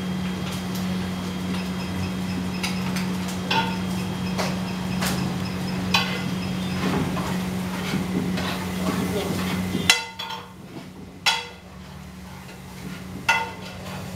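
Stainless steel pots, lids and utensils clanking and clinking in a working kitchen, several sharp metallic knocks with a ringing tail. Under them a steady low hum runs until it cuts out about ten seconds in.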